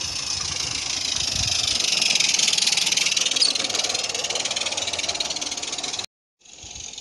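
Small live-steam garden-railway locomotive, a 16mm-scale Decauville 0-4-0, passing close with rapid hissing exhaust beats and the clatter of its coaches on the track. It is loudest two to three seconds in, with a brief squeak about three and a half seconds in, and it cuts off suddenly about six seconds in.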